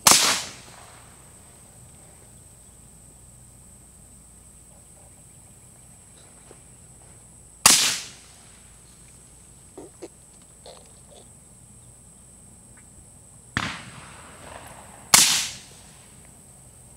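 AR-15 rifle fired through a Gemtech G5 suppressor: three loud, sharp shots spaced several seconds apart, each with a short fading tail, and a weaker crack shortly before the last one.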